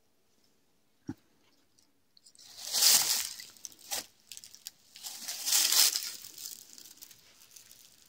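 Dry leaves rustling and crunching in two swells, each about a second and a half long, after a single faint click about a second in.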